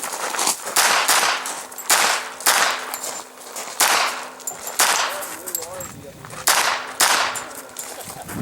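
Pistol-calibre carbine firing a string of single shots at a quick, uneven pace, about eight or nine shots with short pauses between groups.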